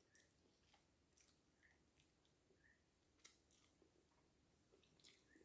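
Near silence with very faint chewing of food, broken by a few light clicks.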